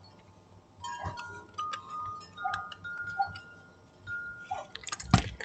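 Wind chimes ringing lightly in scattered single notes, with one sharp thump near the end.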